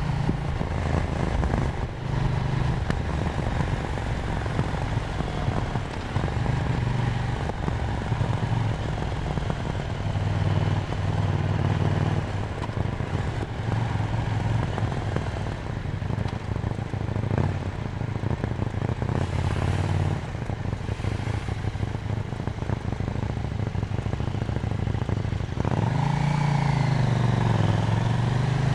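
KTM Duke 790's parallel-twin engine running under way, its pitch shifting up and down with throttle, over wind and road noise. Near the end it gets louder and the engine note dips, then climbs again.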